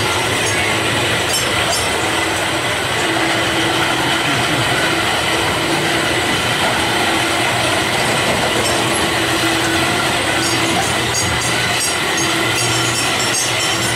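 Kiddie boat ride running: a steady mechanical rumble from its turning drive as the boats circle the water trough, with a low hum that comes and goes and a few faint clicks.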